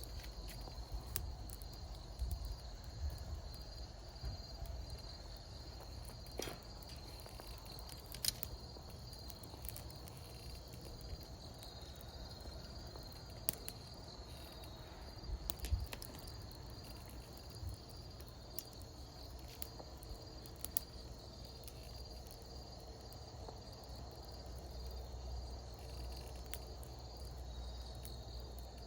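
Wood fire crackling, with scattered sharp pops and a low rumble, over a steady high-pitched insect trill.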